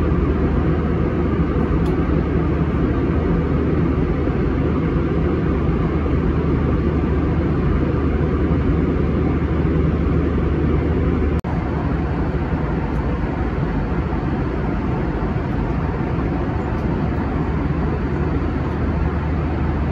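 Steady roar of a jet airliner cabin in cruise: engine and airflow noise with a low hum beneath. It drops out for an instant about halfway through.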